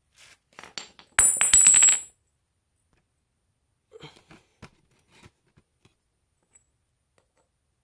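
A small metal part dropped onto a hard surface, clattering through several quick bounces with a high ringing, followed a couple of seconds later by faint handling clicks.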